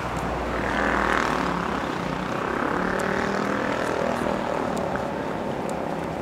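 Steady engine drone with several held tones over traffic-like noise, swelling about a second in.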